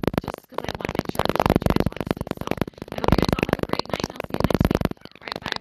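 A woman talking, with only short pauses.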